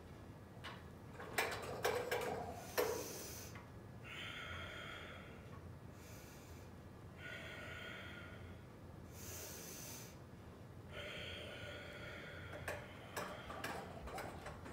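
A person breathing deeply in a slow, even in-and-out rhythm, about three full breaths, during a Pilates stretch. Sharp clicks and knocks from the push-through bar's chains and springs come near the start and again near the end.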